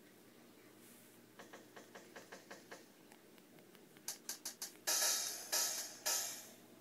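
Drum samples from an iPad drum-machine app, tapped out on its pads and played through the tablet's speaker. About a second and a half in comes an even run of light hits, around four seconds a quicker flurry of brighter ticks, then three loud, bright, cymbal-like hits.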